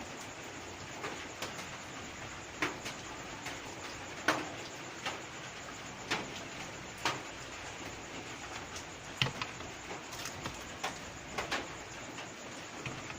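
Irregular small clicks and knocks, one or two a second, from tools and parts being handled on a workbench during electronics repair work, over a steady hiss.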